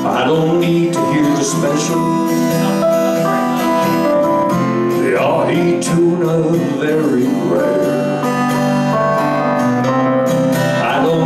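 Live country band playing: acoustic guitar, electric guitar, keyboard and fiddle together.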